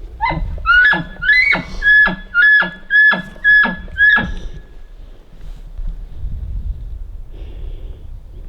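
Elk bugling: a high whistle held at one pitch, broken by about eight sharp downward grunting drops, roughly two a second, lasting about four seconds before it fades.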